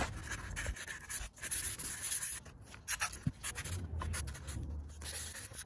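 Light scratching and rubbing from hands handling a small item, with scattered soft clicks.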